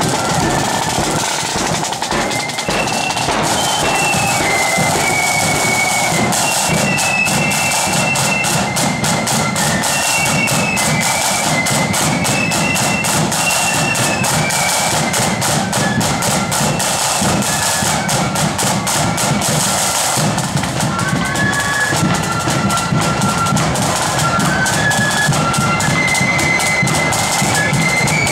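Blood-and-thunder marching flute band playing a tune: flutes carry a high melody over rapid side-drum rolls and beats, with the drumming heaviest through the middle.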